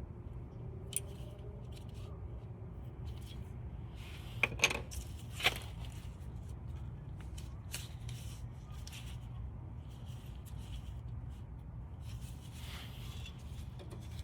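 Small metallic clicks and light scrapes of brake pads and their hardware being handled and fitted on the rear brake bracket, with a few sharper clacks about four and a half and five and a half seconds in, over a steady low hum.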